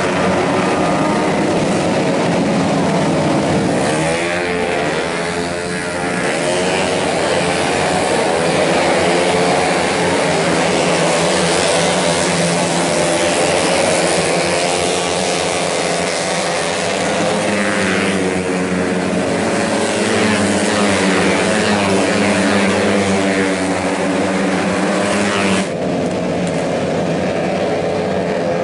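Tuned 131cc automatic racing scooter engines revving high, their pitch rising and falling as they race past. The sound changes abruptly near the end.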